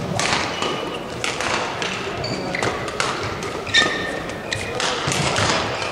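Badminton hall sounds between points: several brief high squeaks of court shoes on the court mat, and scattered thuds and taps, echoing in a large hall.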